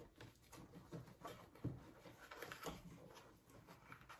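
Faint, irregular rustling and small handling noises of fabric and wool stuffing being pushed into place by hand.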